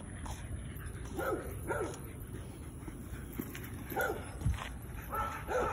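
A dog giving short, high-pitched calls, about five in all: two at the start, one in the middle and two near the end.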